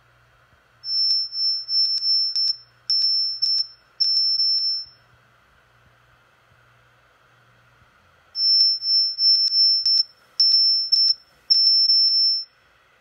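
A single high-pitched steady tone keyed on and off in irregular pulses, with a click at each switch, in two groups of about four seconds with a pause of some three seconds between. It is an acoustic injection tone aimed at a Samsung Galaxy S5's MPU6500 MEMS accelerometer, its pulses forcing the sensor's readings to spell out letters of "WALNUT".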